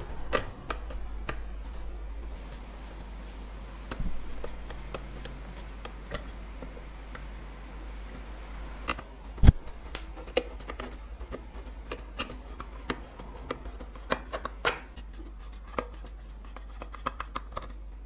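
Screwdriver turning small screws into the metal hopper cover of a wooden coffee grinder: scattered light clicks and scrapes of metal on metal, with one sharp knock near the middle.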